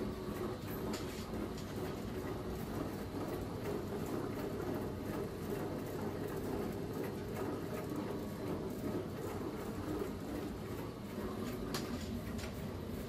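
An electric dough-sheeting machine runs steadily, its motor and rollers making a constant mechanical hum, with a few light clicks near the start and near the end.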